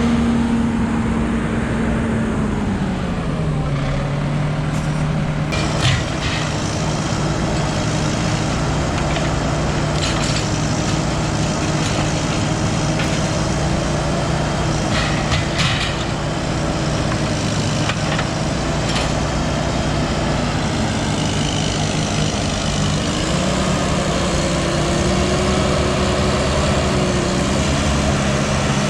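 Heavy diesel machinery engine running steadily. Its pitch drops about three seconds in and climbs again near the end, with a few short sharp knocks along the way.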